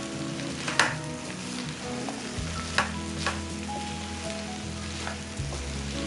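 Food sizzling as it fries in a pan and is stirred, with a utensil knocking against the pan about three times. Background music with held notes plays underneath.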